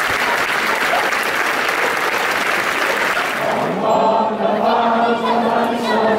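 Large outdoor crowd clapping, then, about three and a half seconds in, the crowd starts singing together in one slow, sustained melody as the clapping dies away.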